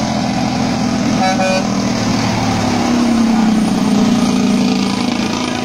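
Diesel engine of a red conventional dump truck pulling hard as it comes up the road and passes close by, its note rising about halfway through. A short horn toot sounds about a second in.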